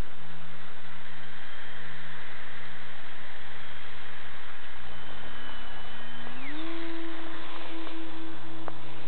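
Electric motors of a Multiplex Gemini RC plane whining, jumping up in pitch about six and a half seconds in as the plane throttles up and lifts off its skis from the snow, under a steady hiss and hum.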